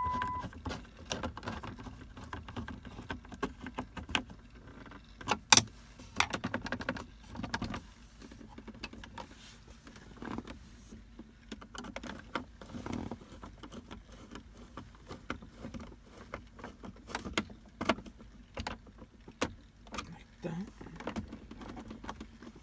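Screws being driven back into a plastic car center console by hand screwdriver, with parts handled: scattered small clicks, taps and rustling, and one sharper knock about five seconds in.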